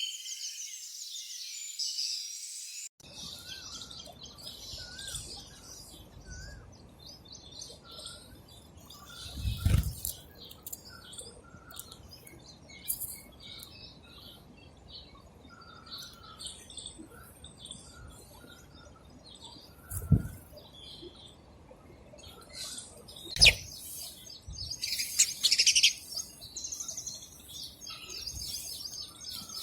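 House sparrows chirping in scattered short calls that build into busier chatter near the end. Three dull knocks stand out as the loudest sounds.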